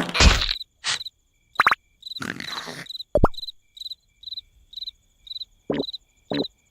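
Cartoon night ambience of a cricket chirping, short high chirps about twice a second, broken by a few short cartoon sound effects: quick swishes and a low thud.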